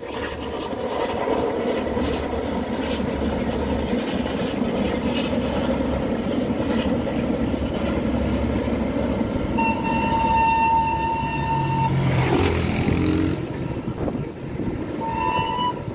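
Steam-hauled train running past with a steady rumble. It gives a long whistle blast of about two seconds around ten seconds in, and a short one near the end.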